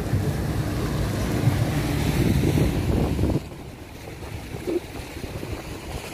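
Sea waves washing among the boulders of a rocky breakwater, with wind buffeting the phone's microphone. About three and a half seconds in, the rumble drops off abruptly, leaving a softer wash of surf.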